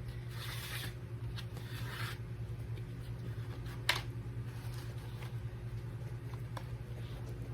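Paring knife cutting a microwaved pizza into quarters, with scraping strokes in the first two seconds and a sharp click about four seconds in, over a steady low hum.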